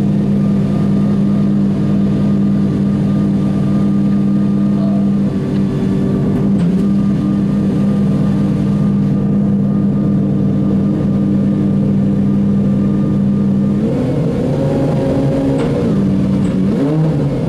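Pagani Zonda Revolucion's V12 idling steadily through its racing exhaust. About three-quarters of the way through, the revs rise briefly and fall back, followed by a second short blip near the end.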